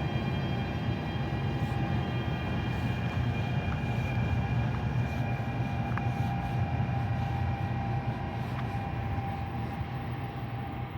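NJ Transit train running by: a steady low rumble with faint steady whining tones above it and a few light clicks, easing slightly near the end.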